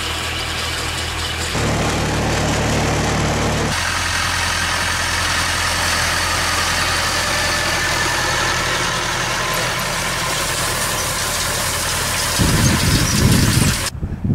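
Farm tractor diesel engine running steadily while haymaking. From about four seconds in it is a Massey Ferguson 265's three-cylinder diesel. The sound shifts at two cuts early on, and a louder rumbling noise comes in near the end.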